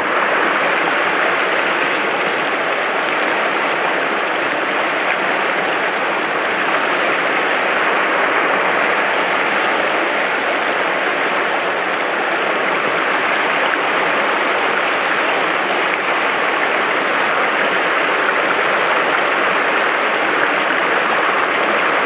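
Mountain stream rushing over shallow, rocky riffles: a steady, even rush of water.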